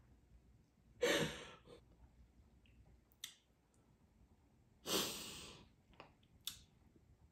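A woman's two heavy, sighing breaths, about a second in and about five seconds in, as she cries, with a few faint clicks between.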